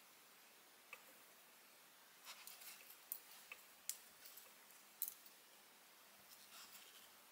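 Faint sounds of hand crocheting with a metal hook in yarn while working double crochet stitches: soft rustles of the yarn being drawn through and a few small sharp clicks, the loudest about five seconds in, over near-silent room tone.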